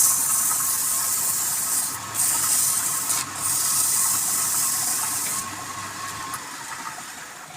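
Wood lathe running with a steady high whine under a loud hiss from work on the spinning wood. The hiss comes in long stretches with short breaks and stops about five seconds in, leaving the whine.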